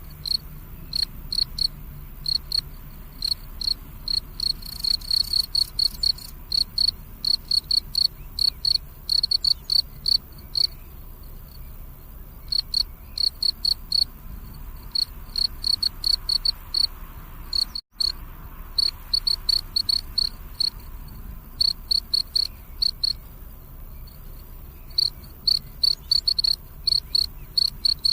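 Crickets chirping: short, high chirps repeated several times a second in runs with brief pauses between them.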